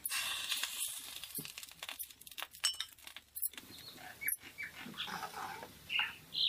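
Wooden spatula stirring a thick chickpea curry in a pan, with irregular wet scrapes and clicks against the pan.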